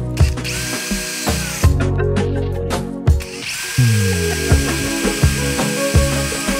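Makita cordless drill running with a steady high whine as it bores a small hole in a 3D-printed plastic case: a short run about half a second in, then a longer one from about three and a half seconds on. Background music with a steady beat plays throughout.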